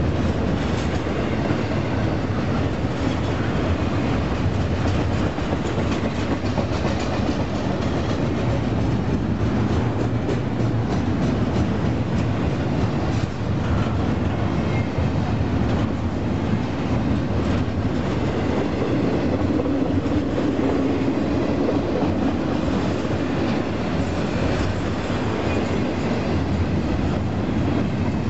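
Double-stack intermodal container cars of a freight train rolling past: a steady rumble of steel wheels on rail, with a fine running clickety-clack of the wheels.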